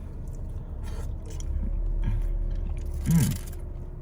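Close-up sounds of handling and biting into a meatball sub: soft scraping and chewing over a low steady rumble, with a short voiced sound about three seconds in.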